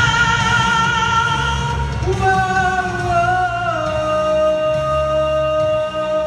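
Karaoke cover of a Malay pop ballad, with a voice holding long notes over the backing track. One note is held from the start, and another comes in about two seconds in, dips slightly and is then held to the close.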